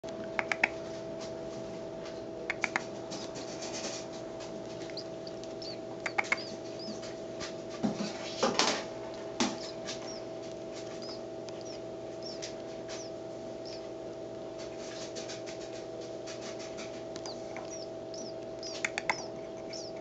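Nestling sparrow begging with thin, high, repeated cheeps over a steady hum. A few short clusters of sharp clicks are the loudest sounds.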